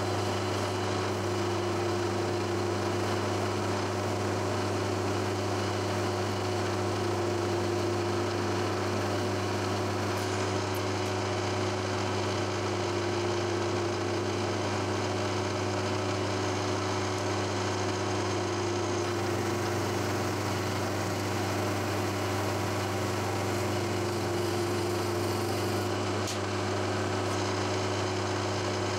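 Milling machine running with a steady hum as an 8 mm four-flute end mill plunge-cuts into steel bar stock under the power down feed, flooded with coolant.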